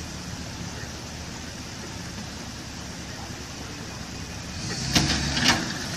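Tow truck's engine running steadily with a low hum as it winches a Suburban up out of a creek, with two sharp sounds near the end.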